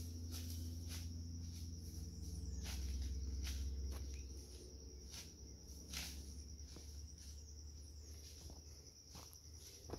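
Footsteps, a sharp step every half second to second, over a steady high-pitched insect trill; a low rumble fades out about four seconds in.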